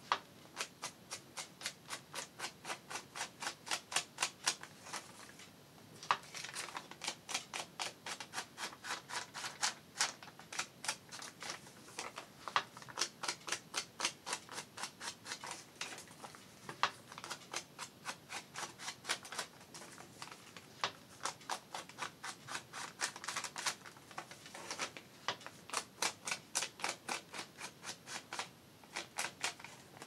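A foam ink blending tool swiped in quick, even strokes against the edges of a sheet of paper to ink them. It makes a rapid scratchy swishing, about three to four strokes a second, with a few short pauses.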